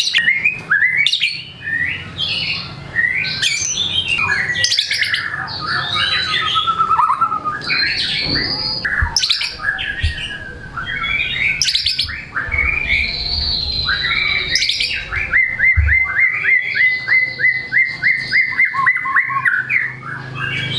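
White-rumped shama (murai batu) in full song, running through a varied string of whistled and chattering phrases drawn from its repertoire of mimicked calls. Near the end it gives a fast, even series of rising notes, about four a second.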